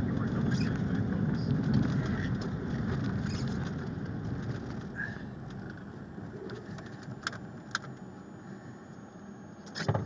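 Car driving slowly on a snow-packed road, heard from inside the cabin: a low engine and tyre rumble that fades after about four seconds. A few sharp clicks come near the end.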